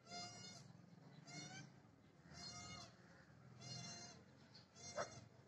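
Faint animal calls: five short, high-pitched calls repeated evenly, about one every second and a bit.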